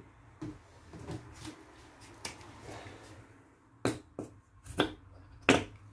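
Faint rustling, then four sharp clicks or taps about half a second apart in the second half.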